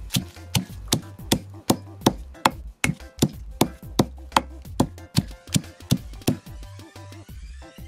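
Stone pestle pounding garlic and herbs in a stone mortar for green seasoning: a steady run of sharp knocks, about two and a half a second, that stops about six and a half seconds in.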